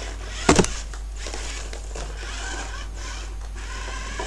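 Toys being handled: a quick cluster of sharp knocks about half a second in, then soft scratchy rustling that stops and starts, over a low steady hum.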